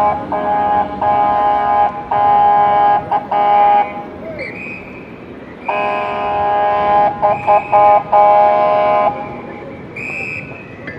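Car horn honking again and again in stopped city traffic, in long blasts and quick short toots, with a pause in the middle. A few short rising high tones come in between the honks.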